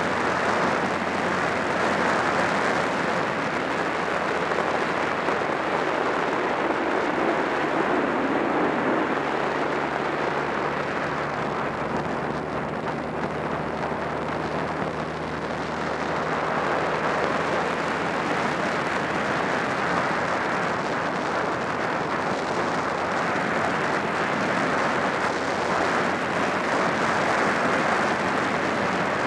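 Honda Rebel 250's air-cooled parallel-twin engine running steadily at cruising speed, under heavy wind rush over the microphone. The engine is a low, even hum beneath the rush, which eases slightly about halfway through.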